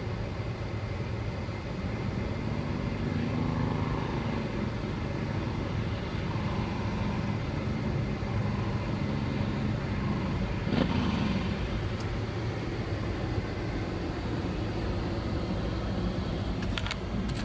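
Suzuki Boulevard M109R's 1783 cc V-twin engine running as the motorcycle rides around, with a single sharp click about eleven seconds in.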